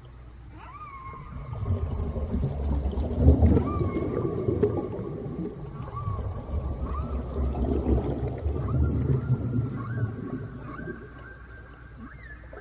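Whale song: drawn-out tonal calls with short upward and downward sweeps, climbing in pitch near the end, over a low rumble that swells and then fades about ten seconds in.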